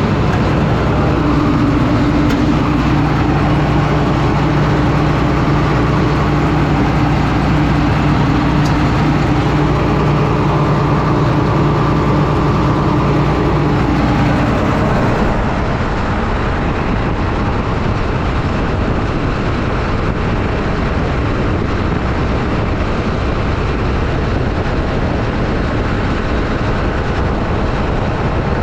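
Combine harvester running at working speed while parked, its engine and threshing and separating machinery making a loud, steady drone. A low hum drops away about halfway through, leaving a steady rushing noise.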